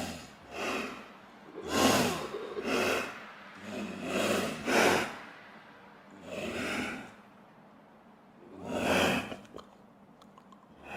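Canada lynx making a series of short, harsh, breathy calls, about eight of them at uneven intervals, with a longer pause before the last one.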